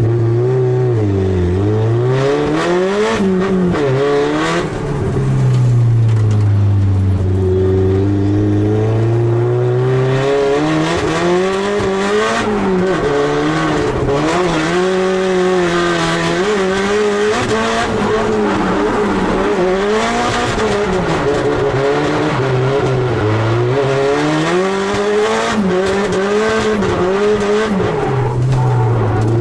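Drift car engine heard from inside the cabin, its revs rising and falling again and again as the throttle is worked through a drift run. Tyres squeal and hiss through much of the middle of the run.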